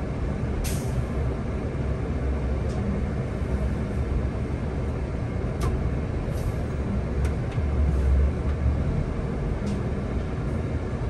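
Solaris Urbino 18 articulated city bus driving, a steady low rumble of engine and road noise heard from inside, with a few faint clicks.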